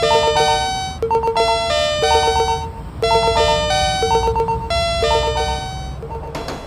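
Electronic chime of a few bell-like notes, the same short phrase repeating about once a second over a low hum and fading near the end: the warning sound of a cartoon railway level crossing signal.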